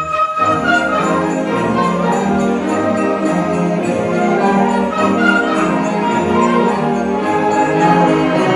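School concert band playing a piece, with a steady beat throughout.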